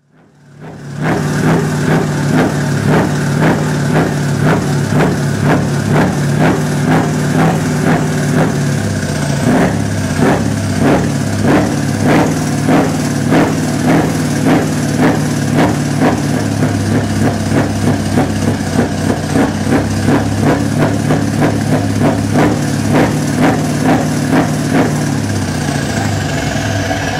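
Scania V8 diesel truck engine idling through quad chrome side exhausts, a steady deep run with a regular pulse about twice a second. It fades in over the first second.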